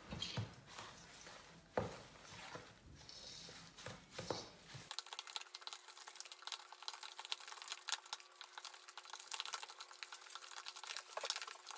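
Wooden spoon stirring thick kimchi seasoning paste of red pepper flakes in a stainless steel bowl: scraping and small wet, sticky clicks, with one sharp knock of the spoon about two seconds in.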